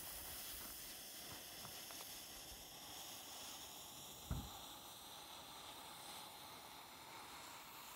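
Faint, steady hiss of a lit fireworks fuse burning down and spitting sparks toward a pile of shell lift powder. One small pop about four seconds in.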